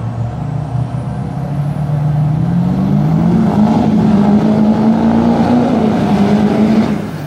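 Diesel pickup trucks, among them a Duramax LB7, accelerating hard down a dirt drag strip. The engine note rises steadily for about the first four seconds, holds high, then eases off near the end.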